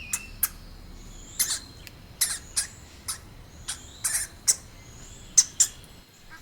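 A hamster making short, sharp, high-pitched squeaks and clicks, about a dozen, irregularly spaced.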